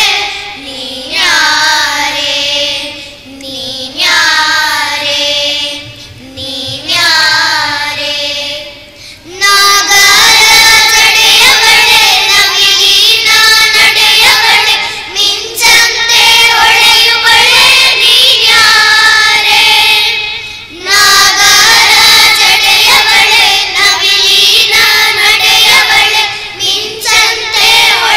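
A group of children singing a song together in unison, with long held notes. The singing is softer for the first nine seconds or so, then comes in louder and fuller, with a short pause between phrases about twenty seconds in.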